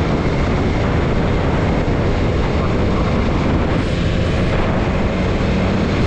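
Steady wind noise rushing over the microphone of a motorcycle-mounted action camera at cruising speed, with the motorcycle's engine running evenly underneath.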